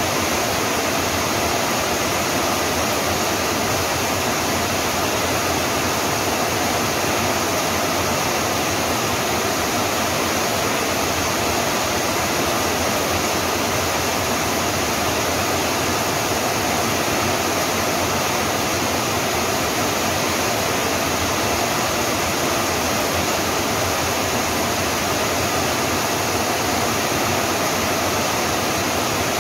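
Steady rain, a dense even hiss that does not change, with no separate drops or thunder standing out.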